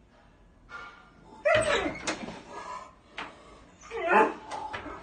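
A dog barking twice, each bark falling in pitch, about one and a half and four seconds in, with sharp knocks at the door in between.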